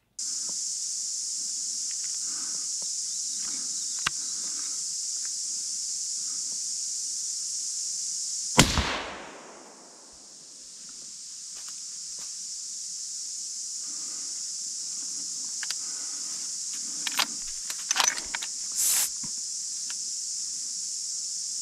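A single suppressed hunting rifle shot about eight and a half seconds in, sharp, with a short falling tail of echo. A steady high hiss runs underneath, and a few small clicks come near the end.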